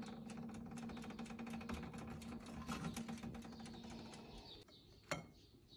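Electric toaster oven toasting bread slices: a steady hum with fast, even mechanical ticking that stops about four and a half seconds in, followed by one sharp click.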